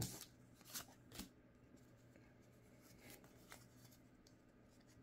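Faint, brief rustles and flicks of Pokémon trading cards being handled and slid through the fingers after a booster pack is opened: a few in the first second and a half, two more around three seconds in. Otherwise near silence.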